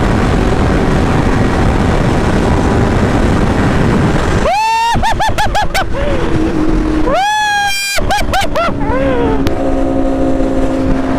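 Motorcycle engine accelerating hard under heavy wind rush on the microphone. About four and a half seconds in, and again about seven seconds in, its pitch climbs steeply and then falls and climbs in a run of quick steps as it shifts up through the gears. Near the end it settles to a steadier drone.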